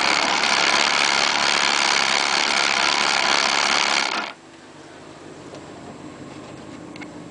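Sport motorcycle engine idling loudly close by, then switched off abruptly about four seconds in, leaving a much quieter background.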